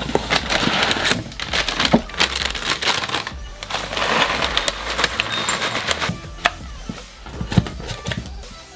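Granola poured from a plastic bag into a ceramic bowl: the bag crinkles and the clusters rattle and patter into the bowl, with many small clicks. Background music plays underneath.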